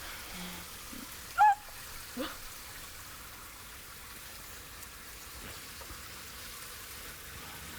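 A steady faint hiss, broken about a second and a half in by a short, high-pitched vocal cry, with a fainter one just after two seconds.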